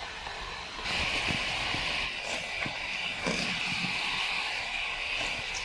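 Hot oil sizzling steadily as crayfish deep-fry in a wok, louder from about a second in, with a few light knocks of a wire skimmer against the pan.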